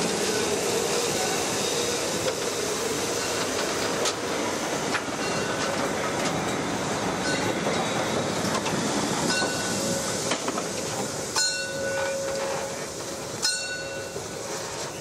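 A train rolling past on the track, its wheels clicking over the rail joints. Toward the end the running noise eases off and a few sharp metallic clicks with a brief ring stand out.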